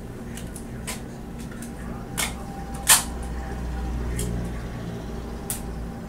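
Scattered light clicks and taps from small objects being handled close to the microphone, the loudest about three seconds in, over a low rumble that swells in the second half.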